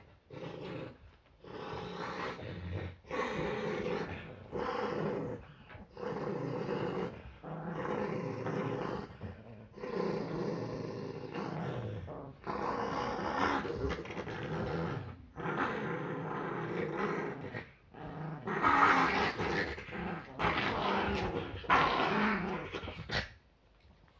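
Yorkshire terrier growling over and over in rough one-to-two-second runs with short breaks for breath, louder near the end, while guarding its toys from another dog.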